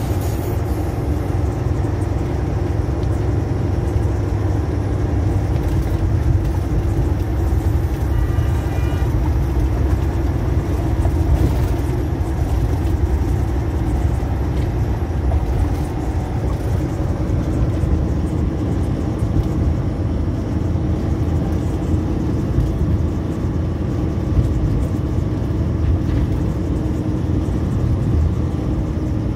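Steady engine drone and tyre and road noise heard from inside a truck cab while it cruises at a constant speed.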